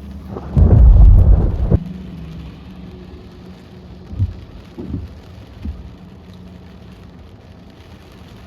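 A loud thunderclap about half a second in, lasting about a second, over steady rain on a car, followed by a few fainter low thumps a few seconds later. A steady low hum runs underneath.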